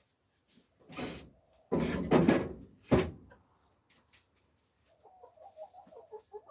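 Backyard hens clucking softly, broken in the middle by a loud burst of rough, rustling noise and a sharp knock about three seconds in; the clucking picks up again near the end.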